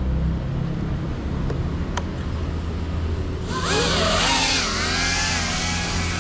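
Ducted propellers of a GEPRC Cinelog35 cinewhoop spooling up about three and a half seconds in as it lifts off: a loud whirring buzz whose whine rises and falls with the throttle. Before that there is a steady low rumble and a single sharp click about two seconds in.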